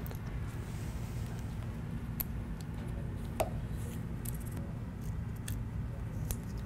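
Plastic bolt-hole caps being pressed by hand into the mounting holes of a ball rail linear guide: a few faint, scattered clicks over a steady low hum.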